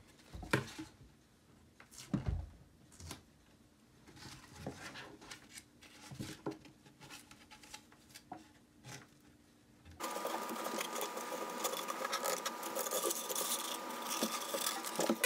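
Faint, scattered rustles and clicks of hands handling plant sprigs, corn husk and a cardboard tube. About ten seconds in, a sudden, much louder dense whirring clatter with a steady whine takes over for the last five seconds.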